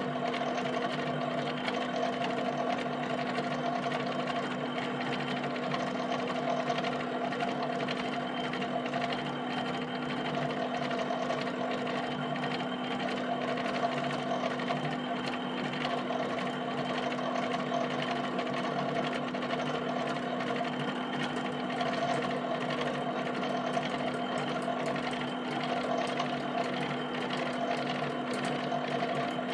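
HP 7585B pen plotter drawing Ben Day dots: a rapid, unbroken run of pen taps on the paper over a steady hum from its drive motors.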